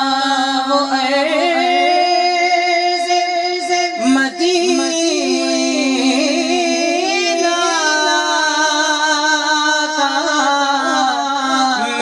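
A man singing a naat, an Urdu devotional poem, into a handheld microphone, drawing out long, wavering held notes with no break.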